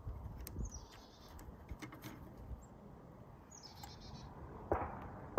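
Two short, high-pitched bird chirps, one about a second in and one near four seconds, over faint outdoor background rumble.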